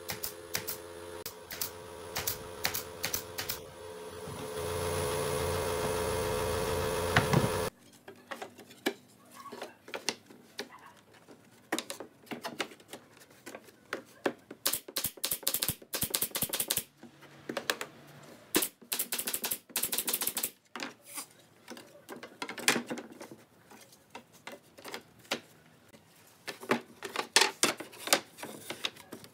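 Pneumatic nail gun firing into pine boards: sharp clacks, some in quick runs, mixed with wooden knocks as boards are handled. A steady hum under the first several seconds cuts off suddenly.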